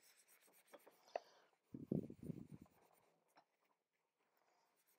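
Damp baby wipe scrubbing a glossy clothing-catalog page, lifting the printed ink: soft scuffing with a few light ticks, then a louder, low rubbing stretch of about a second about two seconds in.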